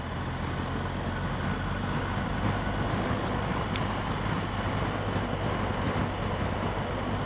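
BMW R 1250 GS boxer-twin engine running steadily, a low even drone, with wind noise on the helmet microphone.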